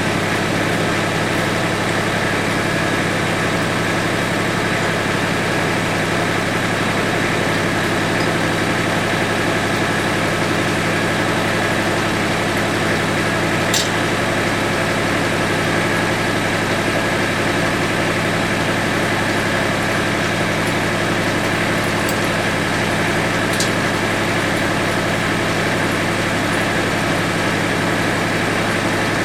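Mahindra Max 24 tractor's diesel engine idling steadily, just after being started, with a few faint clicks over it.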